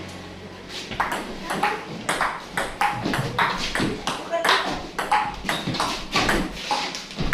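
Table tennis rally: the ball clicking back and forth off the paddles and the table, about three quick hits a second.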